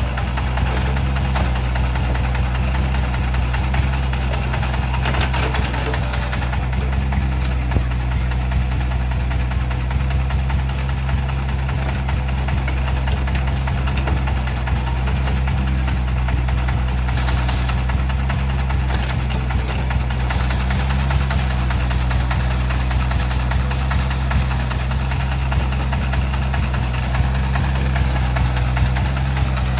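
Diesel engines running steadily at one even, low pitch: the single-cylinder diesel of a three-wheeled tractor idling close by, with a Komatsu MR30 mini excavator working beside it.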